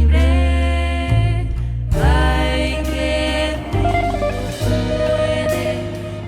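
A jazz-pop band's song: singing over electric bass, guitar and drums, with a sharp drum or cymbal hit about two seconds in.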